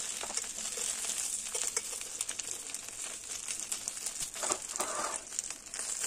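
Banana-leaf-wrapped fish parcels sizzling lightly in oil in a pan, with the crinkle of the leaves and scattered clicks of metal tongs as the parcels are turned over; a couple of louder crackles come about four and a half and five seconds in.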